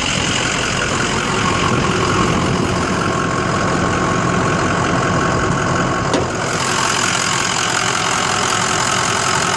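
Ford 6.0 Power Stroke V8 turbo diesel in a 2004 F-450 Super Duty idling steadily. A click comes about six seconds in, and after it the engine sounds brighter and clearer as the hood is raised.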